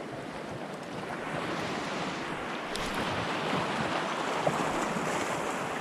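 Small waves washing steadily against a rocky shoreline, growing a little louder after about a second.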